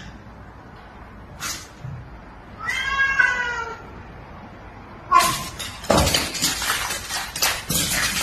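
A cat gives one drawn-out, wavering meow about three seconds in. From about five seconds in there is a rough, noisy flurry of scuffling as the cat and a dog tussle.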